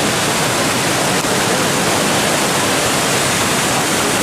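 Veliki slap waterfall pouring: a steady, loud rush of falling water.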